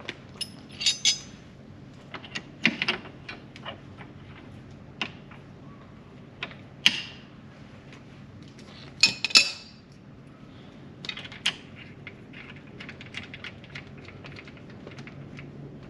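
Small metal brake hardware clinking and rattling as it is picked up and handled: a series of separate clicks and jingles, the loudest about a second in, near seven seconds and around nine seconds.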